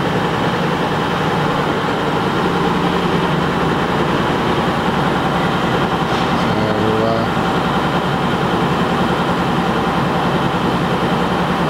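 Steady mechanical drone with a constant hum, even throughout, from a machine running close by.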